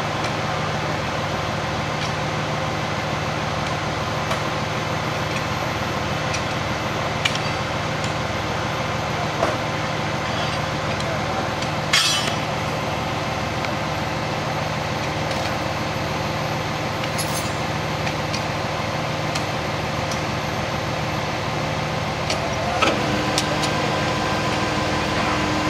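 Heavy construction machinery engines running steadily, with scattered knocks and clinks of steel tie tongs and wooden railroad ties being shifted into place; the sharpest knock comes about halfway through. Near the end a new steady tone joins the engine noise.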